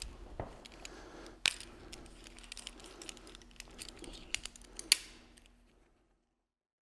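Metal climbing hardware, carabiners and a rappel device, clinking and clicking as it is handled at a climbing harness. Two sharper metallic clacks come about a second and a half in and near five seconds.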